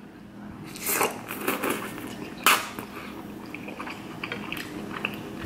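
A man eating instant ramen noodles with a metal fork: chewing and mouth noises, with a sharp click of the fork against the plate about two and a half seconds in.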